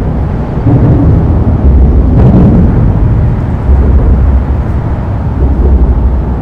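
Traffic crossing a busy concrete road bridge overhead, heard from underneath the deck: a continuous deep rumble, almost like industrial white noise, that swells and eases as vehicles pass.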